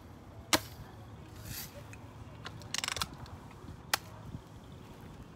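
Lever-action BB gun: a sharp shot about half a second in, a quick rattle of clicks just before three seconds in as the lever is worked to cock it, then a second sharp shot about four seconds in that misses the target.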